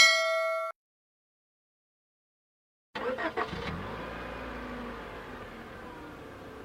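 A short ringing tone at the very start, then silence. About three seconds in, a car engine starts with a brief rough burst and settles into a steady run, its pitch slowly easing down.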